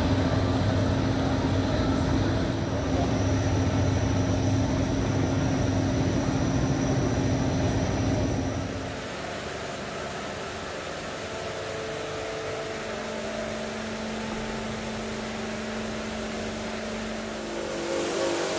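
Industrial automatic rug-cleaning machines running. A carpet-beating (dusting) machine gives a loud, steady low drone with a steady tone for about nine seconds. It cuts to a quieter machine with a steady hum, and the sound grows louder again near the end.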